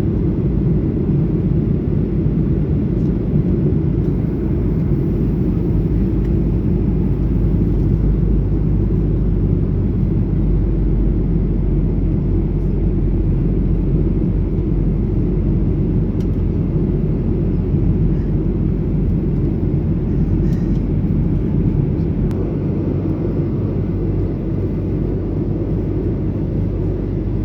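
Steady engine and air noise of a jet airliner heard from inside the passenger cabin, a loud even low drone with a faint hum.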